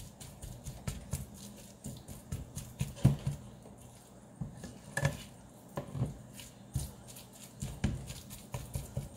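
Silicone spatula stirring cooking meat in a pot, with irregular soft knocks and scrapes against the pot's sides.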